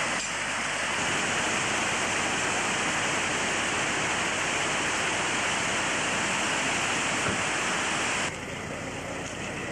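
A loud, steady rushing noise like fast-running water, with no engine or voice standing out. It starts suddenly and cuts off abruptly about eight seconds in.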